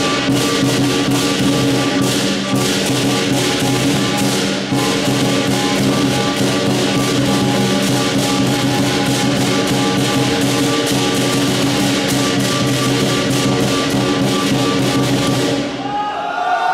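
Lion dance percussion: the big lion drum beaten rapidly and continuously with cymbals and gong, the metal ringing on over the strikes. The strikes break off near the end.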